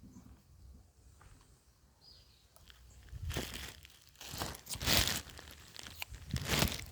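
Three loud bursts of crinkling, crackling rustle, the first a little over three seconds in, after a quiet start.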